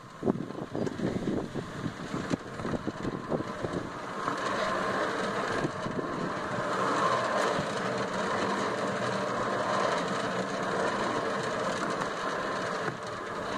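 Playground roundabout being pushed round, with irregular knocks and footfalls at first, then spinning with a steady rumbling noise from about four seconds in.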